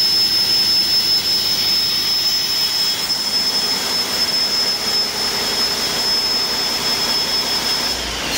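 Cummins ISX15 15-litre inline-six turbodiesel running steadily, with a high-pitched turbocharger whine over the engine noise.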